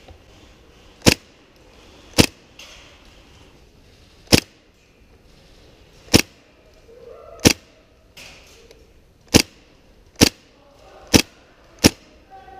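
Gas-blowback airsoft gun fired in single shots: nine sharp cracks, unevenly spaced about one to two seconds apart.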